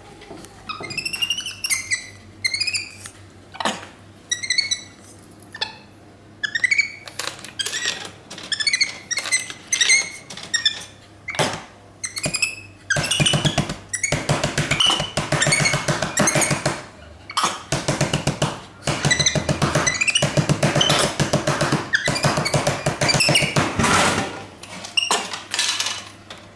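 Capuchin monkey giving short, high chirps and squeaks that rise and fall in pitch. About halfway through, a longer run of loud, rapid, pulsing sound takes over for about ten seconds.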